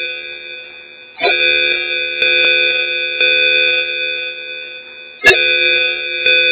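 Electronic call tone: a short ringing phrase of several steady, plucked-sounding notes that fades out and starts over with a sharp attack about every four seconds.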